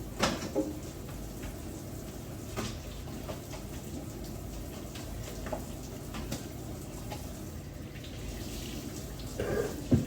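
Kitchen sink being cleaned out: water running from the tap, with scattered knocks and clatter in the sink, the loudest just after the start and near the end.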